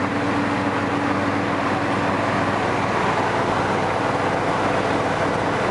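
1972 Oldsmobile Cutlass 442 being driven, heard from inside the cabin: a steady mix of engine running and road noise.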